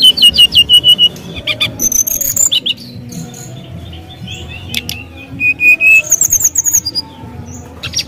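Brown-chested jungle flycatcher singing a loud, varied song of quick chirps, trills and clicks, with a short steady whistled note just after the start and another about two-thirds through.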